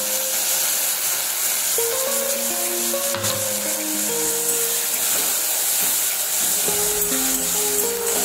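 Ginger-garlic-chilli paste sizzling as it fries in oil in a metal wok, with one sharp knock about three seconds in, under background music of slow held notes.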